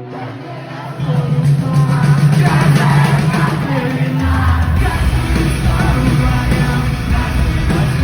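Rock band playing live at a concert, with singing. The full band comes in loudly about a second in, and a heavy bass line joins about four seconds in.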